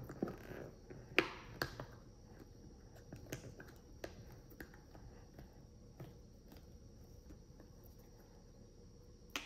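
Light clicks and taps of hard plastic as a water-filled wearable breast pump's cup and shield are handled and turned over. A few sharper taps come in the first two seconds, then fainter scattered ticks.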